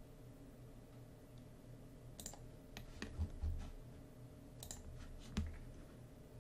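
Several faint computer mouse clicks, scattered from about two seconds in, with a couple of soft low thumps among them.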